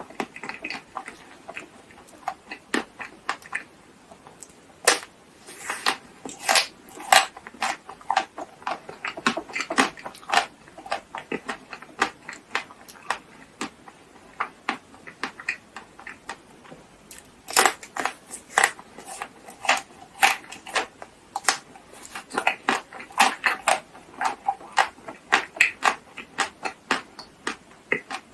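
Close-miked eating: a person biting and chewing chocolate-coated snacks, with many sharp, irregular crackles and clicks as the food breaks in the mouth.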